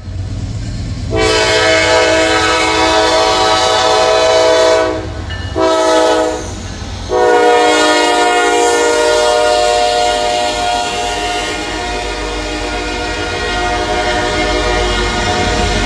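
Freight diesel locomotive passing close by with its horn sounding a long blast, a short one, then a long held blast, over the steady low rumble of the engines. As the horn fades, the freight cars roll past.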